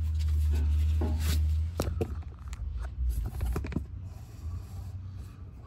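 Low rumble for about a second and a half, then a quick run of light knocks and scrapes from work on the car's rear coil-spring area.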